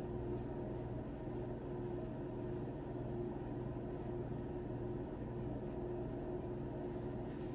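Steady low hum of a running kitchen appliance, with a constant higher tone over it.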